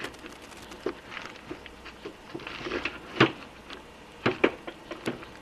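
Scattered light clicks and clinks of small metal tools and parts being handled on a workbench while reaching for an Allen key. The sharpest taps come about three seconds in and again a few times just after four seconds.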